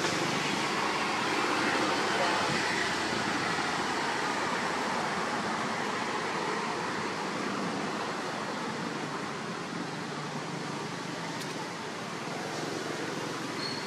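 Steady background noise, an even hiss with no distinct calls or knocks, easing slightly in level.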